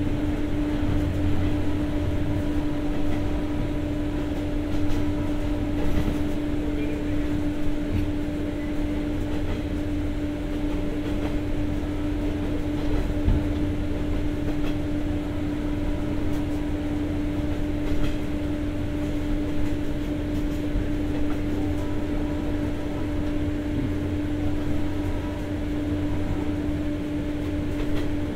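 Steady hum of the onboard diesel generator set in a 203-series commuter car, with one strong constant tone, over the low rumble of the train and a few short knocks.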